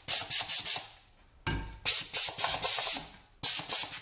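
Compressed air hissing out of a 3D-printed air-duster valve top fitted on a Schrader valve, released from a plastic bottle pumped to about 55 psi. It comes as three clusters of short, sharp blasts about a second apart.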